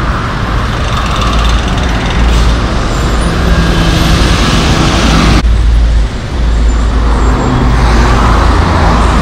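Road traffic in a heavy jam: a steady mass of car, lorry and bus engines running with a deep low rumble. The sound drops and changes abruptly about five and a half seconds in, at a cut to another stretch of the same traffic.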